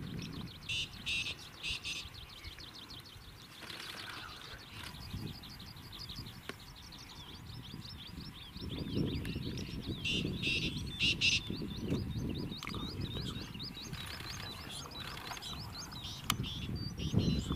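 Birds calling outdoors: a long, rapid run of repeated high chirps, with a few louder sharp calls about a second in and again around ten seconds in. A low rumble runs underneath and grows louder in the middle.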